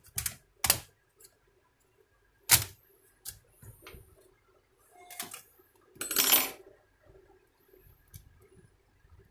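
Plastic laptop casing being pried open and handled: two sharp clicks near the start, a louder snap about two and a half seconds in, then a short scraping rustle about six seconds in.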